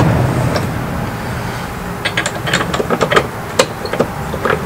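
Light metallic clicks and taps, several a second and irregular, as bolts are hand-started through a steel hinge step into a Jeep's door hinges. A low steady rumble underlies the first two seconds.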